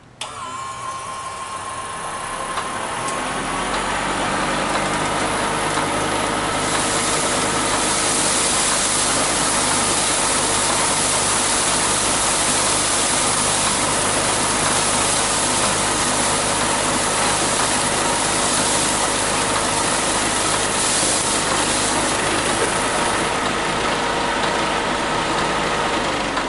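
A 1 hp 24-volt DC motor driving a grain impact huller's impeller through belts and pulleys, spinning up over the first few seconds and then running steadily with a whine. From about six seconds in, a loud hiss of canary seed being flung by the impeller against the housing as it is hulled, easing off a few seconds before the end.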